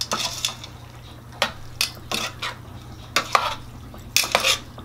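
A spoon stirring sautéing bell peppers and tomatoes in a stainless steel pot, scraping and clinking against the metal about twice a second, over a light sizzle of frying.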